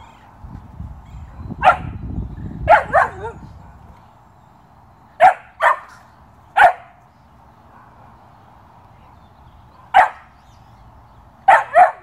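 A 13-week-old Belgian Malinois puppy barking: about nine short, high-pitched barks in irregular bursts of one to three.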